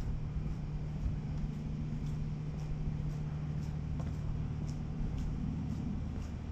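A steady low mechanical hum from running machinery, with faint gritty footsteps about twice a second on a wet site road.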